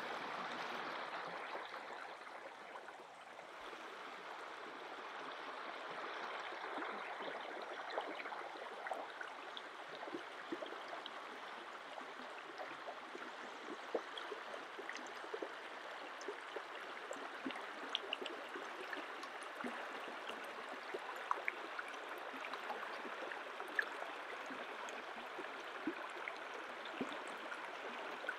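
Shallow river running over a gravel bed: a steady babbling flow, with scattered faint ticks over it.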